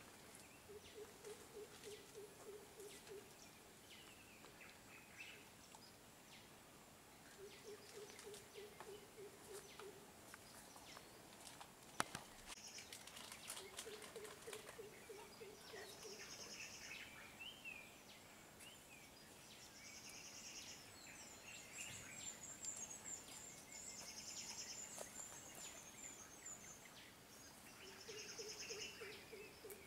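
Faint birdsong: a low, rapidly pulsed call of two to three seconds, repeated four times, with high chirps and trills from other birds, busier in the second half. A single sharp click or snap about twelve seconds in.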